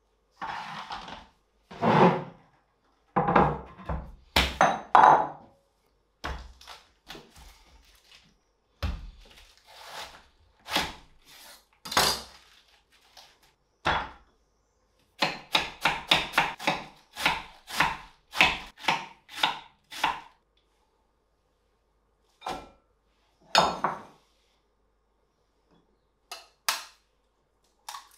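Kitchen handling sounds with silence between them: knocks and clatters of food, glass bowls and plates set down on a wooden board, including a quick run of knocks in the middle. Two sharp taps near the end as an egg is cracked into a glass bowl.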